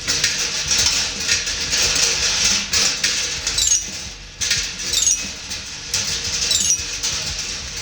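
Glass marbles rolling and clattering over the copper wire, pipe and plate tracks of a marble machine: a dense, continuous rattle of small clicks and knocks, with several brief high falling tones.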